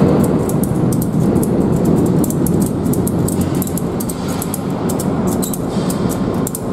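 Loud, steady rumble of vehicles driving on the ferry's vehicle deck overhead, echoing through the hold. Over it comes a run of quick, light clicks as a motorcycle tie-down strap is worked and tightened.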